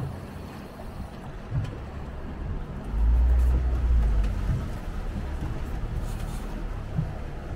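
A boat's engine running at low speed, heard from inside the cabin as a deep, steady rumble that swells louder for about a second and a half around three seconds in.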